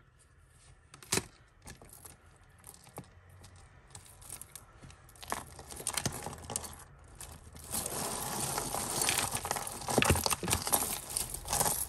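Tangled costume jewellery being handled and pulled apart: beads, faux pearls and chains clicking and jangling against each other, with rustling. A single sharp click comes about a second in, and the handling gets busier and louder from about eight seconds in.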